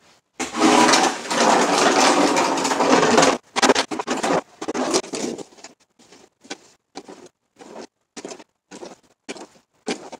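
Plastic snow shovel scraping snow off a concrete driveway: one long, loud scrape for about three seconds, then a run of short scrapes about twice a second.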